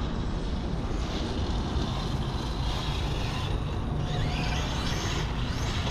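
Large electric RC truck (Arrma Kraton) running across a grass field, its motor whine rising and falling a few times as it speeds up and slows down, over a steady low rumble.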